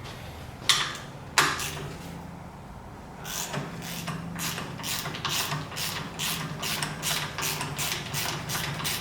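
Ratchet wrench with a 14 mm socket being worked on a bolt, clicking in an even run of strokes about three times a second, preceded by two sharp metal clinks.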